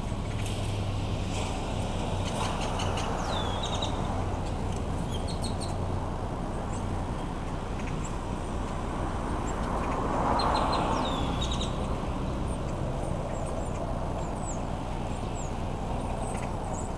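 Birds chirping in short, scattered calls over steady background traffic noise that swells briefly about ten seconds in.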